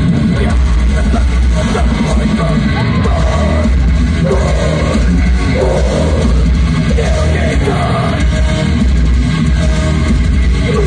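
Symphonic black metal band playing live, heard from the audience: the singer's vocals over pounding drums and distorted guitars, loud and unbroken.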